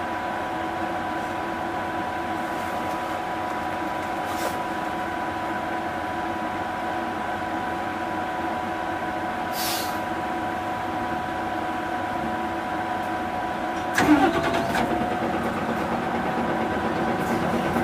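Mitsubishi Fuso Aero Star bus running on the road, heard from inside the cabin: a steady drone with several steady whining tones. A brief hiss comes about ten seconds in, and a sharp clunk about fourteen seconds in, after which the sound grows louder and one tone slowly rises.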